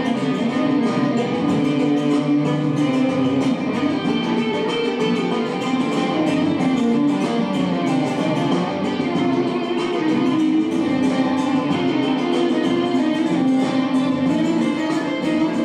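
Instrumental music on a flat Indian string instrument, many ringing string notes in quick succession, played steadily throughout.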